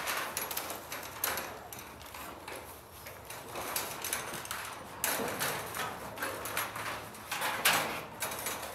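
Irregular knocks and rattles of a garage door panel, with its hinges and brackets attached, being lifted off sawhorses and swung into the door opening.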